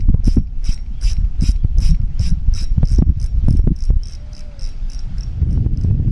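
Spinning fishing reel clicking in an even rhythm, about three clicks a second, as the line is wound in. Low wind rumble on the microphone runs underneath.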